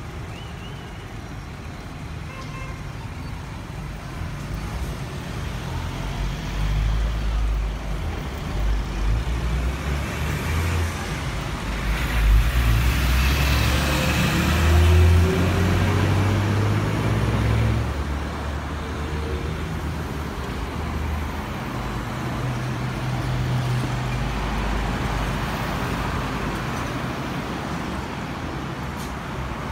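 Jet engine noise of a Boeing 777-200ER with GE90 engines at climb power after takeoff, a deep rumble that swells to a peak about halfway through and then slowly fades as the airliner moves away.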